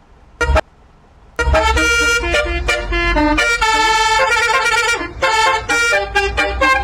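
Basuri multi-tone "telolet" bus horn: one short toot about half a second in, then from about a second and a half a continuous tune of quickly changing horn notes.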